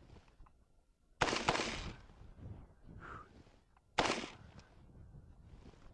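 Two single shots from an AR-15 rifle, about three seconds apart, each trailing off in a short echo.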